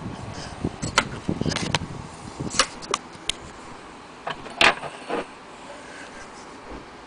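Scattered clicks and knocks from an antique Willcox & Gibbs sewing machine being handled, at irregular intervals, the loudest a sharp knock about four and a half seconds in.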